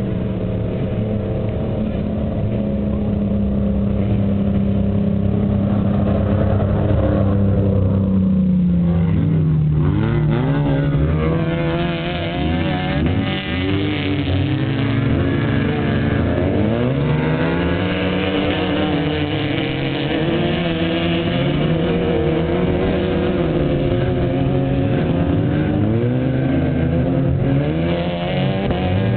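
Off-road race truck engines revving. A steady engine note drops about eight seconds in, then overlapping engine notes rise and fall repeatedly as the trucks accelerate and back off.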